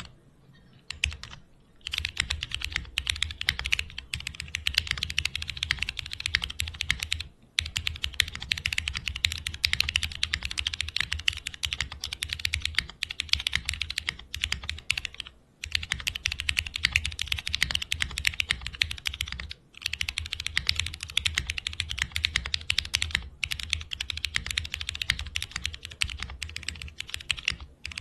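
Fast typing on a custom 60% mechanical keyboard with retooled MX Black linear switches on an aluminium plate, no foam inside: a dense run of key clacks, beginning about two seconds in and broken by a few brief pauses.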